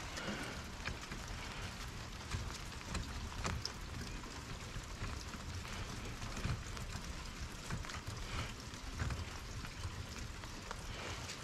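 Steady hiss of light rain falling on the van and around it, with scattered faint clicks of gloved hands working on the hoses in the engine bay.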